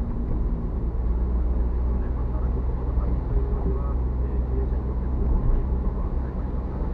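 Steady low rumble of a car driving, heard from inside the cabin through a dashcam's microphone, with a faint voice from the car radio underneath.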